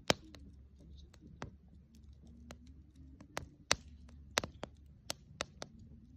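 Wood fire crackling: sharp, irregular pops and snaps, about ten in six seconds, the loudest right at the start and again near the middle, over a faint steady low rumble.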